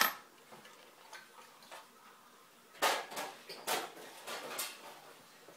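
Handling clatter from stripped Xbox parts: a sharp click at the start, then after a quiet stretch a run of knocks and rattles, hard pieces knocking together, from about three seconds in.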